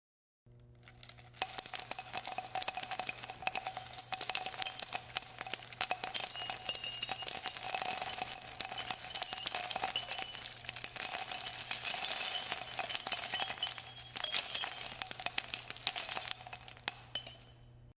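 Many .50 calibre shell casings dropping and clinking against each other in a dense, continuous metallic jingle with bright ringing. It starts about a second in, eases off briefly twice, and fades out near the end.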